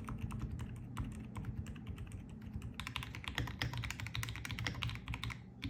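Typing on an Akko x Dark Project mechanical keyboard: quick, continuous keystrokes. About three seconds in, the clacks turn sharper and brighter.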